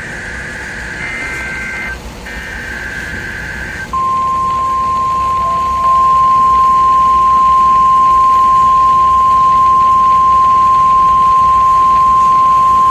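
Emergency Alert System broadcast on NOAA Weather Radio, heard through a radio. The shrill warbling digital SAME header bursts finish about four seconds in. Then the steady single-pitch 1050 Hz warning alarm tone starts and holds, signalling that a weather alert is being issued.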